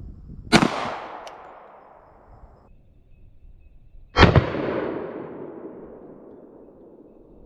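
Two shots from a Glock 21 Gen 4 .45 ACP pistol firing 230-grain Browning X-Point rounds, about three and a half seconds apart, each trailing off in a long echo.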